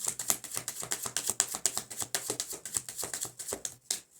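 A deck of tarot cards being shuffled by hand: a fast run of crisp card snaps, about eight to ten a second, that stops just before the end.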